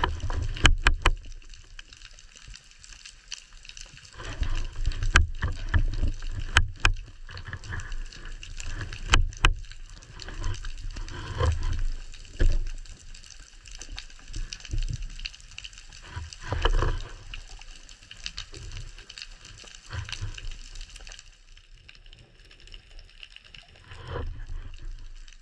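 Underwater sound picked up by a diver's camera: low water rushing that swells and fades in surges, with a few sharp clicks in the first ten seconds.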